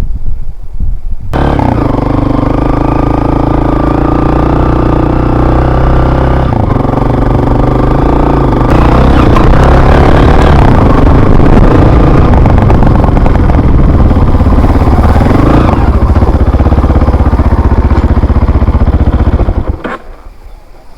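Motor vehicle engine running close by. It starts abruptly about a second in, shifts pitch a couple of times and fades out near the end.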